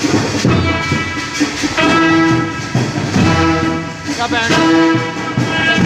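Indian procession brass band playing a tune, with horns holding long notes between quicker phrases.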